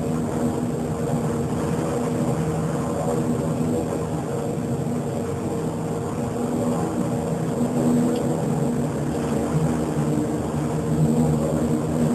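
Propeller airplane's engines droning steadily, heard from inside the cabin, with a few steady pitched tones over a rushing noise.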